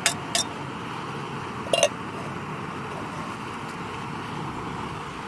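Omelette frying in a pan: a steady sizzle, with a few light clicks, two near the start and one about two seconds in.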